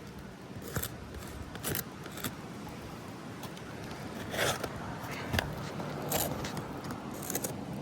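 A series of short, irregular scrapes and scuffs over a low steady background.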